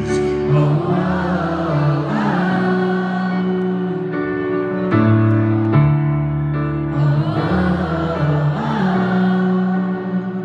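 Live grand piano playing slow held chords, with singing over them.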